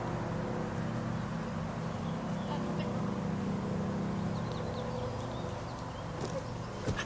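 A steady low hum runs throughout, and near the end a single soft thump as a body lands on a mattress lying on grass.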